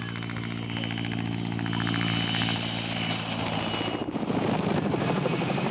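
Mil Mi-2 helicopter's twin turboshaft engines and main rotor in a low fly-by, growing louder with a steady high turbine whine over the rotor hum. About four seconds in the sound changes suddenly: the whine drops away and the rotor sound turns rough and choppy.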